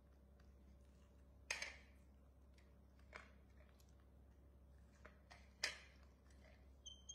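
Juvenile macaque eating corn on the cob in a quiet room: a few short, sharp crunches, the strongest about a second and a half in and again past the halfway mark. A brief high squeak near the end.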